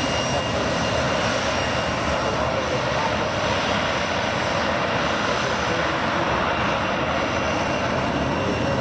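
Aircraft engine noise running steadily and loud, with no rise or fall.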